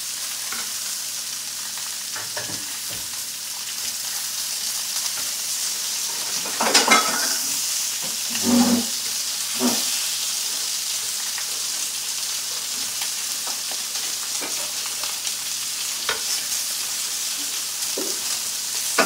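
Lamb chops sizzling as they sear in hot pans, a steady high hiss. A few clatters of a utensil against the pan as the chops are turned, the loudest about seven seconds in.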